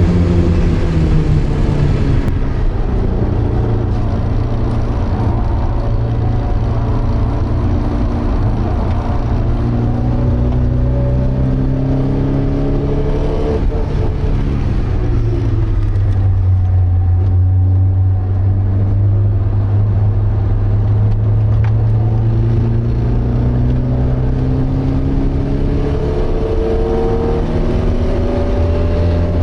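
Porsche 924's 2.0-litre four-cylinder engine, heard from inside the cabin, running hard on track. Its note climbs slowly under acceleration, drops sharply about halfway through as the revs fall, then climbs again and drops once more near the end.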